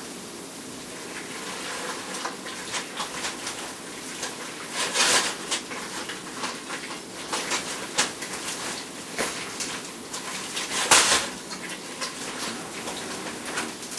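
A utensil scraping and clinking against a pot as macaroni and cheese is stirred, irregular, with louder stretches of scraping about five seconds in and just before eleven seconds.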